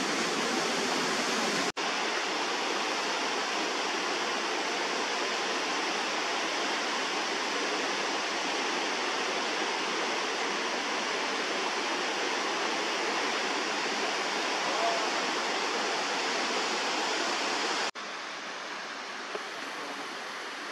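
Mountain creek rushing over rocks, a steady rush of water. It cuts out for an instant about two seconds in and turns quieter near the end.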